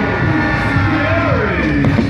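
Fireworks show soundtrack music, loud and steady, with gliding singing voices.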